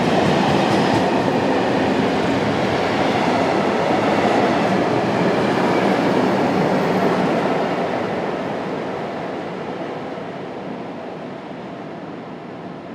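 Freight train passing through a station: the steady rolling noise of the wagons on the rails, fading gradually from about two-thirds of the way through as the train moves away.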